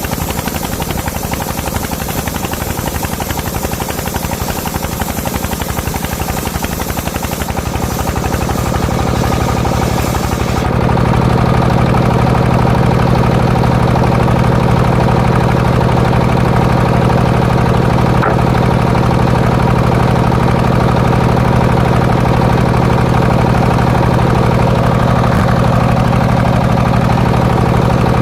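Engine of a homemade circular sawmill running hard with a fast, even knock, under a harsh hiss for the first ten seconds. About ten seconds in the hiss cuts off abruptly, and the engine then runs louder and steadier.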